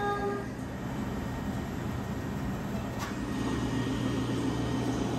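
Steady low mechanical hum of ice cream shop refrigeration machinery running, with a few fixed low tones and no change in level.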